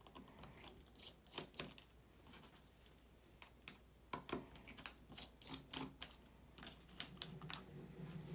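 Faint, irregular clicks and ticks of a small precision screwdriver working the tiny trackpad screws out of a 12-inch MacBook's aluminium top case.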